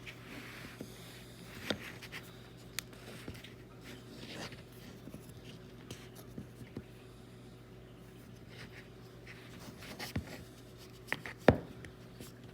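Scattered light clicks and taps of hands handling small wooden parts, with a sharper knock about eleven seconds in.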